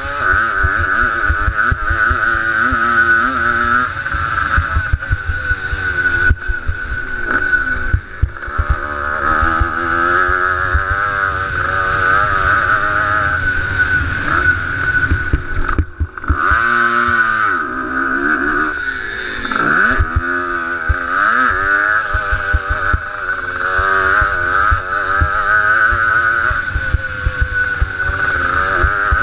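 Motocross dirt bike engine revving up and down repeatedly as the rider races around a dirt track, heard through a helmet-mounted camera with wind and low rumble buffeting the microphone. About midway through, the engine briefly drops off and then revs back up.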